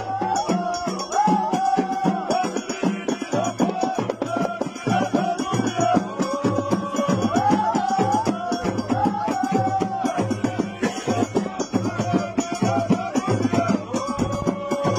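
Moroccan Hmada folk music: frame drums beating a steady rhythm under a held, sliding melody line.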